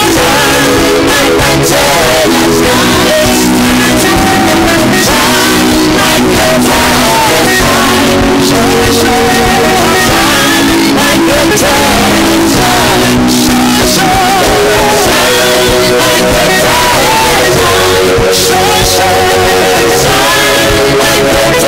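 Live gospel worship music: several singers at microphones singing with instrumental accompaniment. Long held notes waver in pitch.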